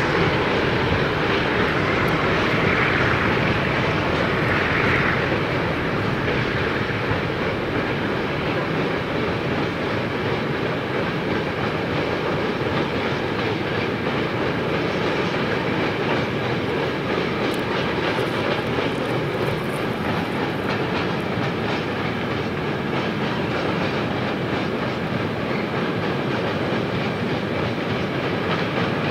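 Freight train of empty flat wagons rolling across a steel truss viaduct: a steady rolling noise of wheels on rail, with faint clicking of wheels over rail joints.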